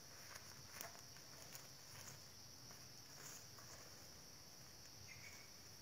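Faint, steady high-pitched drone of insects, with a few soft ticks or rustles scattered through it.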